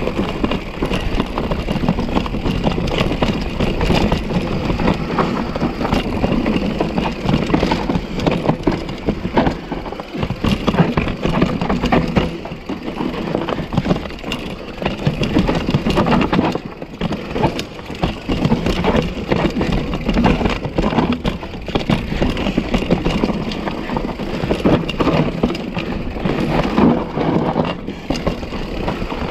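Mountain bike ridden over a rough, rocky trail: tyres crunching over dirt and rock, with the bike rattling and clattering over the bumps in a steady stream of small knocks.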